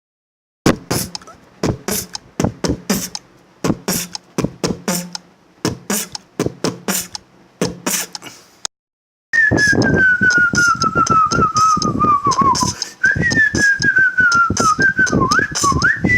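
Mouth beatbox pattern of kick, snare and hi-hat hits recorded into a phone looping app. About nine seconds in, the loop plays back denser, with a whistled line layered over it that glides slowly downward, breaks off, then returns higher and wavering.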